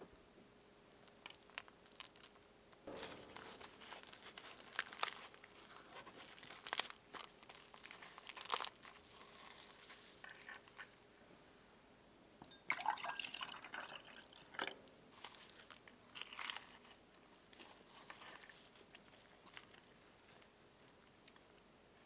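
Crisp, flaky paratha crackling and crunching as it is handled, with scattered sharp clicks. Near the middle, milk is poured from a glass jar into a drinking glass, a gurgling pour lasting about two seconds.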